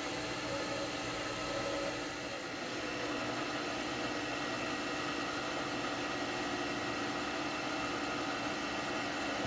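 Milling machine spindle running steadily while a drill bit cuts into a cast-aluminium hand wheel. It is an even mechanical hum with several held tones.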